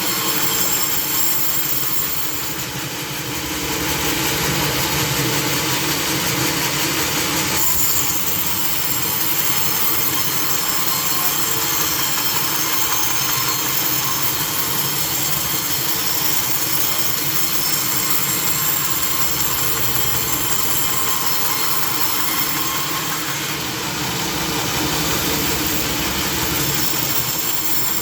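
Sawmill saw machinery running steadily, with a constant hum and hiss; the level dips briefly about two to three seconds in.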